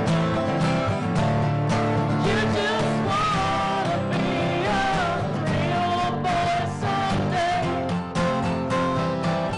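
Acoustic guitars strummed with a pick in a steady rhythm, with a melody of bending, sliding notes played over them in an instrumental break of the song.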